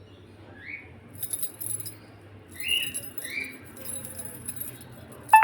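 A small bell jingling in two short bursts, with a few short high chirps between them and a sharp, loud call near the end.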